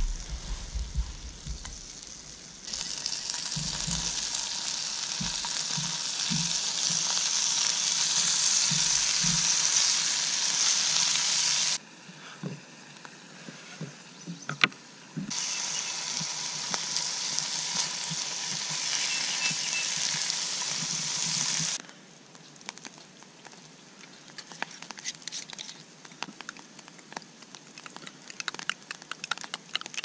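Food sizzling in a frying pan over a wood-fired rocket stove: butter, then mushrooms and sausage. There are two long stretches of steady sizzle that start and stop abruptly. Quieter clicks and crackles follow, growing denser near the end.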